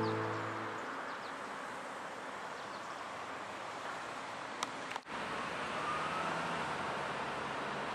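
Steady outdoor hum of distant road traffic, with the tail of acoustic guitar music fading out in the first second. The background drops out for an instant about five seconds in.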